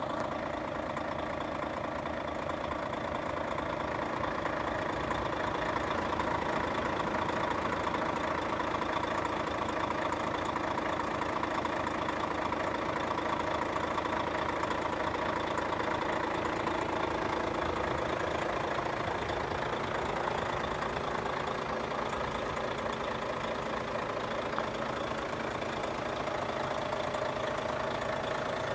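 Volvo FH500 tractor unit's 13-litre straight-six diesel engine idling steadily.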